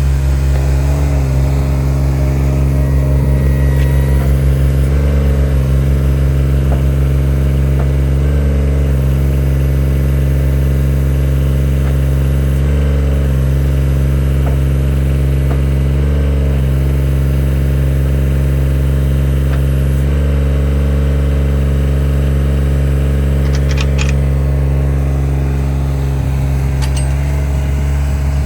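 Yanmar SV15VT mini excavator's diesel engine running steadily, its note dipping briefly every few seconds, with a few light clicks near the end.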